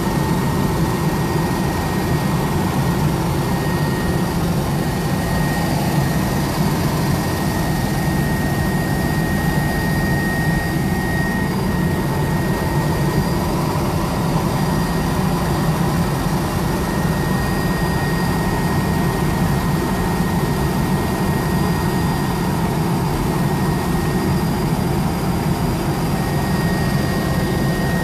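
Helicopter in flight heard from inside the cabin with the door open: the steady drone of the engine and rotor, with a thin high whine held over it.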